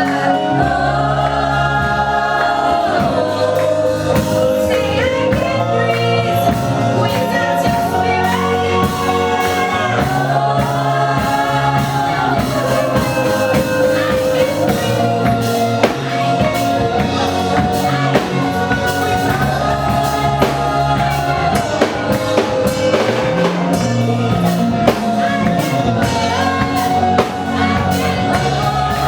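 Gospel worship song: a choir of singers holding long sung lines over a band with drum kit.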